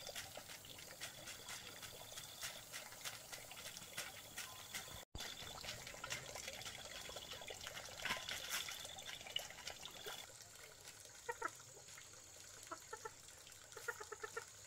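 Faint scattered clicks and taps, then a few short animal calls in the last few seconds.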